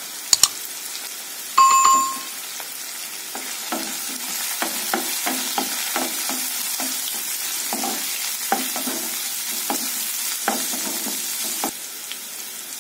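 Sliced onions and curry leaves sizzling in hot oil in a nonstick kadai, with a couple of sharp clicks as the curry leaves go in. A short bell-like ding sounds about two seconds in, then a spatula stirs and scrapes the mix in repeated strokes until shortly before the end.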